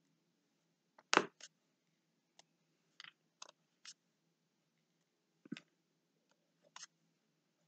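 Scattered small clicks and taps, about eight of them, the loudest about a second in: a diamond-painting drill pen picking square drills from the tray and pressing them onto the canvas. The clicks come as the square drills snap in snugly between their neighbours, a sign that they are seated well and will sit straight.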